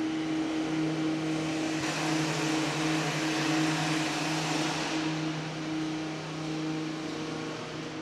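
Train platform ambience: a steady low mechanical hum with a broad rushing noise that swells a couple of seconds in and eases off after about five seconds.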